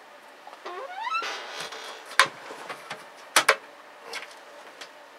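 Aluminium side panel of a linear amplifier chassis being handled: a short rising squeak about a second in, a scraping rub, then sharp clicks, the loudest pair about three and a half seconds in.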